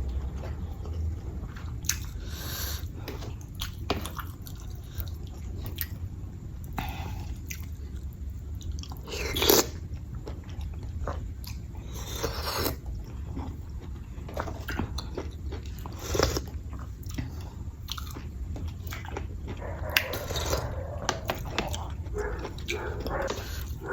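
Close-up mouth sounds of a person chewing and smacking while eating curry and sticky rice, with scattered short clicks and a few louder ones, over a low steady hum.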